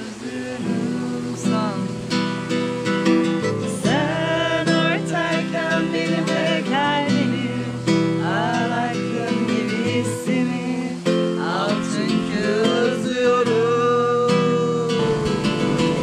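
Acoustic guitar strummed as a steady accompaniment, with a voice singing a melody over it from about four seconds in.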